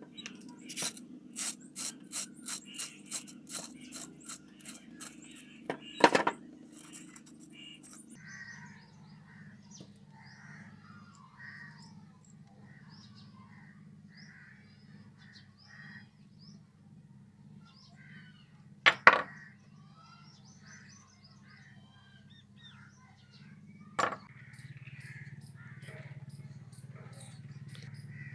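Steel pliers clicking and snipping at an old plastic shower hose and its brass end fitting, a run of light clicks about two a second ending in a loud knock. After that, birds chirping in the background, broken by two sharp knocks.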